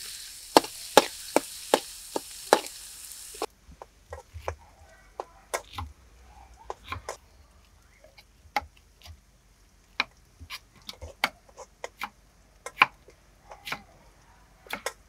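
Minced garlic sizzling in hot oil in a steel wok, with a metal ladle clacking against the pan; the sizzle cuts off about three and a half seconds in. Then a knife cuts green bell pepper on a wooden chopping board, in scattered single knocks.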